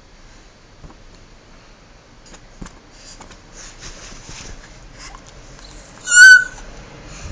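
A baby gives one short, very high-pitched squeal about six seconds in, its pitch wavering. Before it there are only faint small noises.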